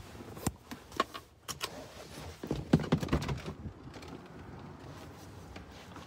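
Handling noise as someone climbs out of a pickup's cab: clothing rubs against the phone, with a series of sharp clicks and knocks in the first three seconds, then a steady, quieter noise.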